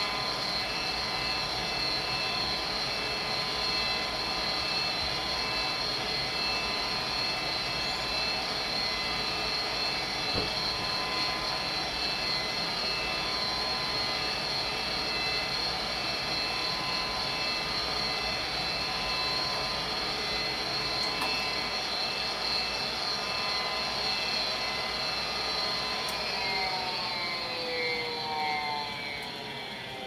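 Vintage Armstrong gas furnace running with its panel off: the draft inducer motor and blower run steadily with a high whine. About 26 seconds in, the whine fades and a motor spins down with falling pitch as the furnace shuts off from the thermostat.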